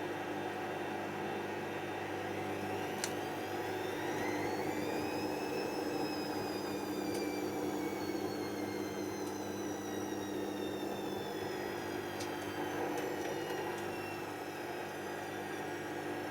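Hoover DYN7144XD1 washing machine running with a steady hum. Its motor whine rises over about three seconds, then slowly falls away over the next eight as the drum speeds up and slows down. A few faint clicks come in between.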